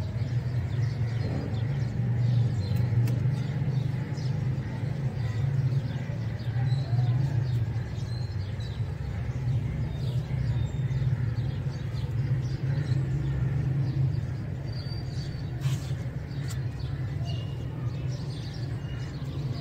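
Outdoor background with a steady low rumble and birds chirping here and there. A single sharp click comes about three-quarters of the way through.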